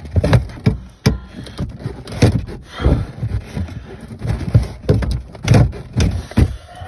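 Irregular metallic clunks and knocks from a Land Rover Discovery 2 boot jump seat's steel frame being wiggled against its spring-loaded floor mounting, to work it free of the mounting threads.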